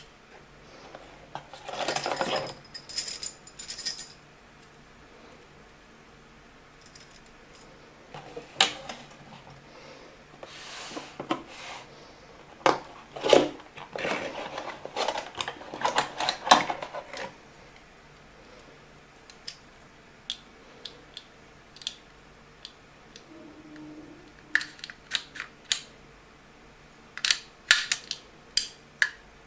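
Metal keys jangling and the steel parts of a deadbolt lock clinking and clicking as they are handled, in scattered bursts with a ringing jangle about two seconds in.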